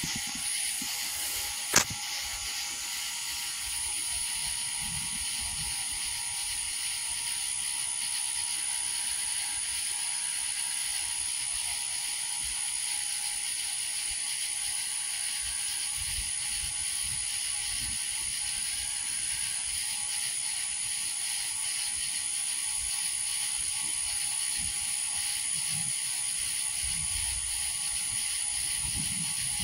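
Steady hiss of heavy rain during a thunderstorm, with an even high-pitched whine over it. A single sharp click about two seconds in, and faint low rumbles now and then.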